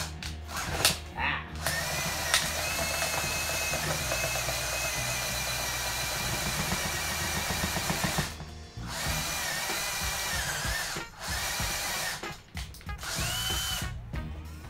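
Power drill with a step drill bit boring through the plastic top of a portable turntable. It runs in a long steady whine, pauses briefly about eight seconds in, runs again, then comes in a few shorter bursts near the end.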